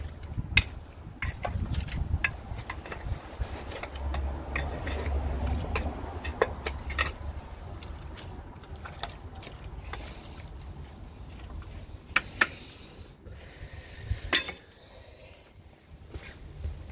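A rod prodding and scraping through congealed fat and wastewater in a blocked manhole channel, breaking up a fat blockage. Sharp knocks and clicks against the channel, the loudest two near the end, with sloshing of the sewage water.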